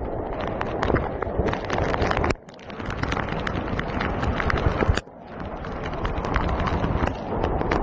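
Floodwater rushing and churning across a paved street, a steady loud rush of water full of crackles and splashes, broken by two abrupt cuts about two and a half and five seconds in.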